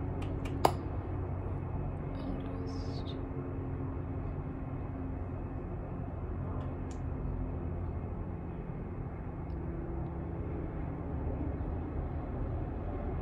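Steady low background rumble, with one sharp click about a second in and a few faint small ticks.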